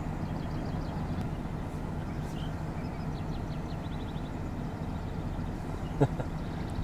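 Vehicle engine idling with a steady low hum. Faint, quick high chirps come about three seconds in, and a single short knock comes near the end.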